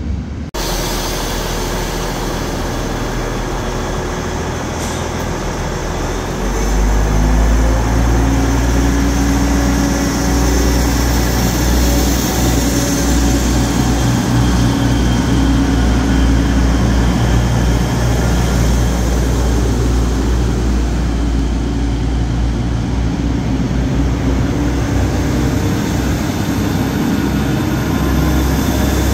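Diesel engines of a red DB regional multiple unit running as the train moves slowly along the platform: a steady low drone that grows louder about six seconds in and then holds.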